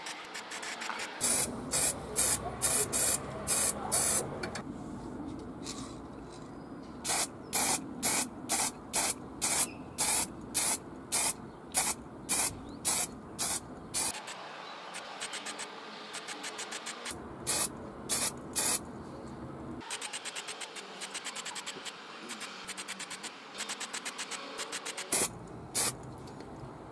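Aerosol spray-paint can sprayed in many short bursts, about two a second, in runs separated by brief pauses.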